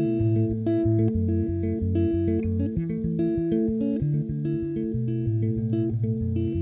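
Instrumental passage of an indie pop song: a picked electric guitar figure repeating over a bass guitar line, with no singing.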